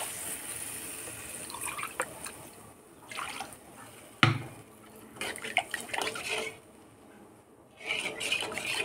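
Water poured from a steel cup into a kadhai of fried onion-and-spice masala, added so the spices don't burn, with a liquid hiss over the first two seconds. A steel spatula then scrapes and stirs the thin curry in the pan, with one sharp clank against the metal about four seconds in.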